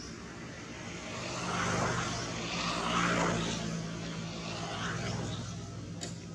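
A distant engine drone, swelling to its loudest two to three seconds in and then easing off, like a propeller aircraft passing over.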